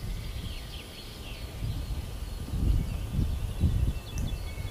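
Outdoor woodland ambience: a low, irregular rumble that swells and falls, with small birds chirping in the trees.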